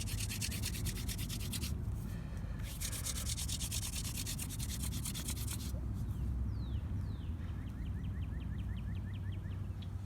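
Wooden hand-drill spindle spun back and forth between the palms, grinding in its hearth board: a fast, even, scratchy rubbing with a short break about two seconds in, stopping a little before six seconds. After it, faint high chirps end in a quick chirping run.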